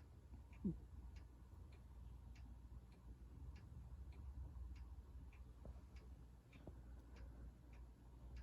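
Faint, regular ticking, about two ticks a second, over a low steady hum. About a second in comes one short falling sound, the loudest moment.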